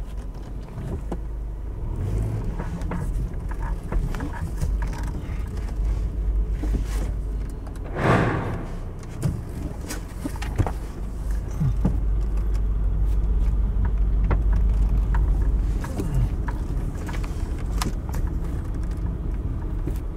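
Car moving slowly: a steady low engine and road rumble, a little louder for a few seconds past the middle, with a brief louder rushing noise about eight seconds in.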